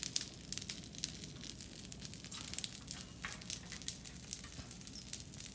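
Burning brush piles crackling, with irregular sharp pops and snaps over a low hiss.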